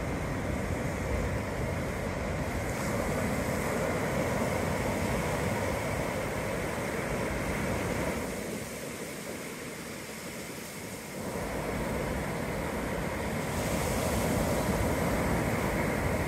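Ocean surf: a steady wash of waves that eases off for a few seconds in the middle, then builds again as another wave breaks near the end.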